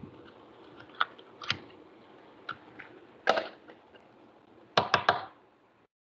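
Whiteboard marker being handled: scattered small clicks and knocks, a short scraping rustle about three seconds in, and three sharp clicks in quick succession near the end.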